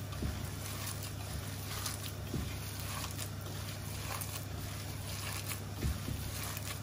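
Gloved hand kneading cooked rice into minced meat in a stainless steel bowl: soft, wet squishing of the mixture with a few faint taps, over a steady low hum.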